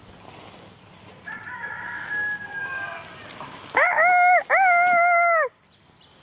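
Roosters crowing back and forth: a fainter crow about a second in, then a loud cock-a-doodle-doo about four seconds in that lasts about a second and a half, with a brief break near its start.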